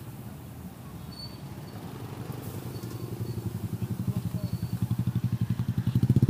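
A motorcycle engine running with a fast, low pulsing beat, growing steadily louder and loudest near the end.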